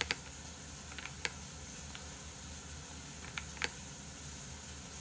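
A few scattered computer keyboard keystrokes: one near the start, one about a second later, and two in quick succession later on, over a steady faint hiss.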